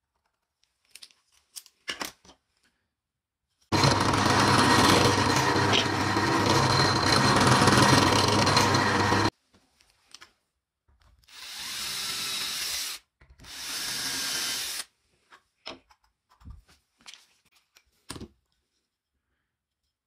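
Power drill running on plywood: one long steady run of about five seconds, then two shorter runs of a second or two each, in the manner of driving screws. Light knocks of wood being handled before and after.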